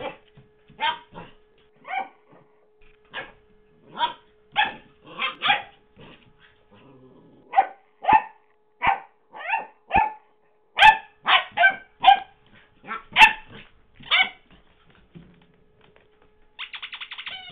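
Chocolate Labrador retriever puppy barking in short, high yips, about twenty of them in irregular bunches.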